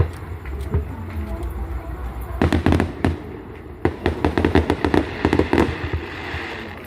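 Aerial fireworks going off in rapid strings of sharp bangs and crackles, one cluster about two and a half seconds in and a longer run from about four seconds to nearly six, over a steady low rumble.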